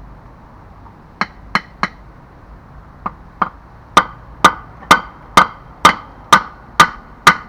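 Hammer striking metal: three quick blows, a pause, two lighter taps, then a steady run of harder blows at about two a second, each with a short ring.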